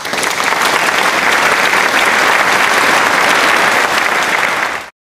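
A group of people applauding: dense, steady clapping that cuts off abruptly near the end.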